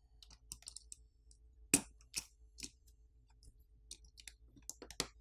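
Small sharp clicks, scattered irregularly, as press-fit camera flex-cable connectors on a Samsung Galaxy S21 main board are popped off with a plastic pry pick. The loudest click comes about two seconds in.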